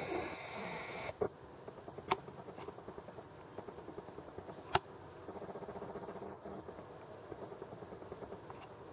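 Nikon Coolpix P500's built-in lens zoom motor whirring for about a second at the start. After it come three sharp clicks, the loudest near the middle, then a second, lower stretch of motor buzzing and a few small ticks as the lens keeps zooming.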